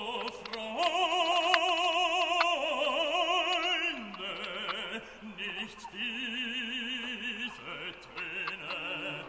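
Background music: an operatic singing voice holding long notes with wide vibrato, changing pitch every second or two.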